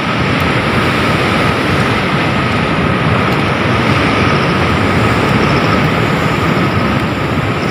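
Rushing floodwater making a loud, steady rushing noise, with a faint steady high tone running through it.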